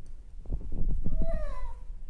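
Domestic cat giving one falling meow about a second in, over low thumping and handling noises; a protest cry from a cat that is afraid of water, during its bath.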